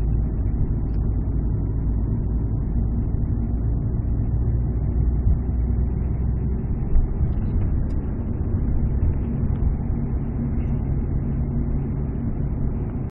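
Steady road and engine noise inside the cabin of a moving car. The engine note shifts about two-thirds of the way through.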